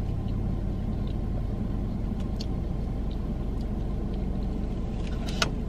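Steady low rumble of a car idling, heard from inside the cabin. There are a few faint clicks, and a sharper click near the end as a plastic fork digs into pie in a paper takeout box.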